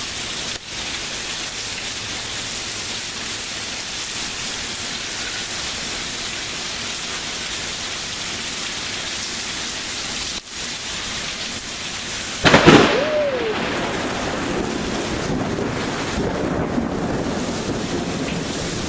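Steady heavy rain, then about twelve and a half seconds in a sudden very loud thunderclap from a close lightning strike, followed by thunder rumbling on under the rain.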